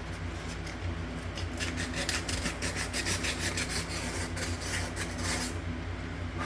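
Quick back-and-forth rubbing strokes, about five a second, on the rim of a kitchen sink's drain opening, cleaning off old plumber's putty. The strokes start about a second in and stop shortly before the end.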